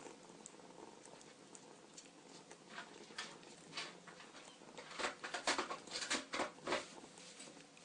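Kitten smacking and suckling at a feeding syringe: a few quick wet clicks, then a denser run of them near the end.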